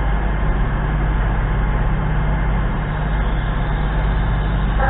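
Steady low hum of a stationary CrossCountry Voyager diesel multiple unit's engines idling at the platform, with an even rumble and no change in pitch.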